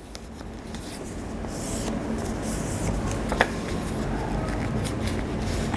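Paper rustling and being creased by hand as a glued worksheet is folded along its dotted lines, with one small tap about three and a half seconds in.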